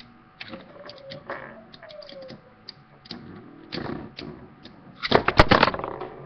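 Metal Beyblade spinning tops clashing and scraping against each other and the plastic stadium: scattered clicks and knocks, then a quick run of hard collisions about five seconds in.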